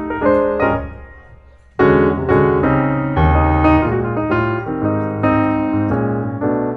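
Background piano music: a passage dies away about a second in, and a new piano passage starts abruptly just under two seconds in.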